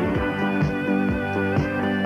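Instrumental music with a steady beat of about two strokes a second.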